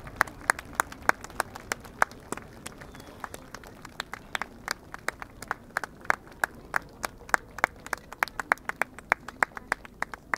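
Scattered hand clapping from a few spectators: sharp, separate claps coming irregularly several times a second.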